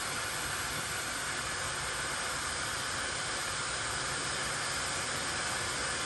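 Laifen high-speed hair dryer with a brushless motor running, blowing a steady, even rush of air.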